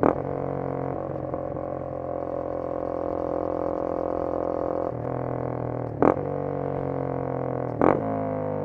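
Honda CBR250R's single-cylinder engine running steadily under way, with three short sharp knocks, one at the start, one about six seconds in and one near eight seconds. Near the end the engine note falls as the bike slows.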